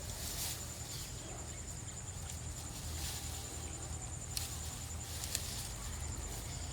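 Outdoor ambience: a steady high-pitched insect trill over a low rumble, with a few short sharp clicks.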